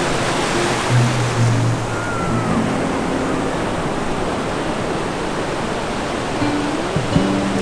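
Sea surf washing steadily onto the beach, with background music playing over it.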